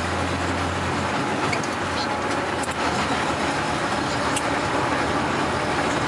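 Steady road noise and engine hum inside a moving vehicle on a narrow road, with a few faint clicks of rattling trim.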